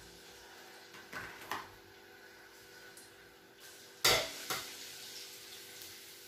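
A cooking utensil knocking and scraping against an aluminium wok while minced garlic is stirred in hot oil: a few light taps, then two sharp clanks about four seconds in.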